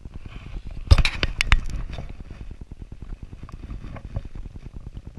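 A landed fish being grabbed off gravel: a few sharp knocks and scrapes about a second in, then faint rapid rustling.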